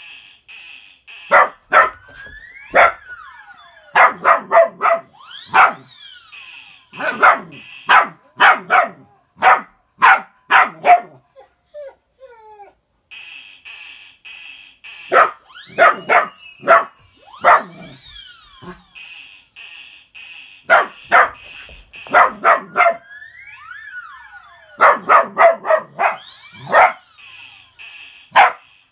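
A dog barking in fast clusters of short, sharp barks, with a few whines and yips between them. Between the clusters there are stretches of a high-pitched sound that pulses quickly and evenly, about four or five times a second.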